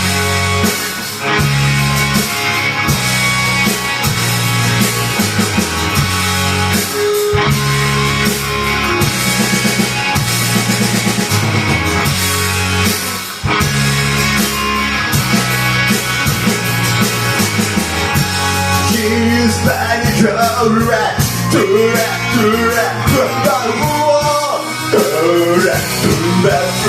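Rock song with electric guitar, bass and drums; singing comes in about two-thirds of the way through.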